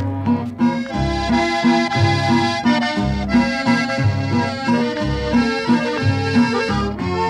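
Norteño music: a button accordion plays the melody over guitar accompaniment and a regular bass line.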